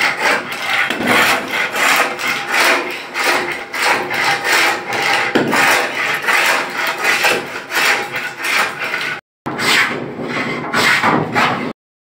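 Wooden hand plane shaving the edge of a wooden flush door in quick repeated strokes, a few a second, with a brief break about nine seconds in.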